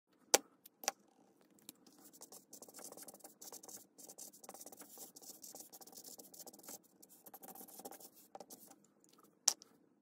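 Marker pen scratching across paper in short, irregular writing strokes. Two sharp clicks come near the start and one shortly before the end.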